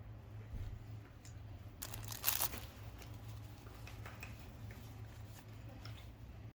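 Plastic packaging being handled: scattered crinkles and small clicks, with one louder tearing rustle about two seconds in, over a low steady hum. The sound cuts off abruptly near the end.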